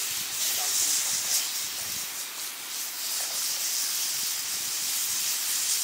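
Pork pieces sizzling on a hot flat stone heated by a wood fire: a steady hiss that thickens as more pieces are laid on.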